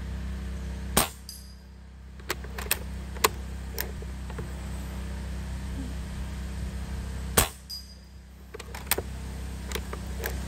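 Two shots from a Umarex Gauntlet .22 PCP air rifle firing 17.5-grain slugs, about six seconds apart. Each is a sharp crack followed a moment later by a faint high ring. Lighter clicks come between and after the shots as the bolt is cycled to chamber the next slug.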